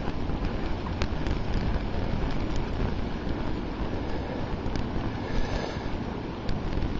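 Blizzard wind buffeting the microphone, a steady, heavy rumble of gusts with a few faint ticks scattered through it.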